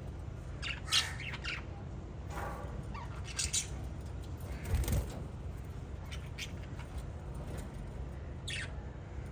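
Small pet parrots giving short, sharp squawks and chirps, scattered every second or so, the loudest about a second in and near the middle, over a steady low hum.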